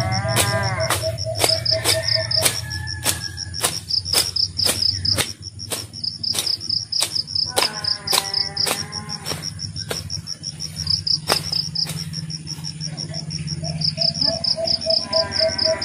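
Insects chirping in a high, fast, steady pulse, with sharp clicks about twice a second over it.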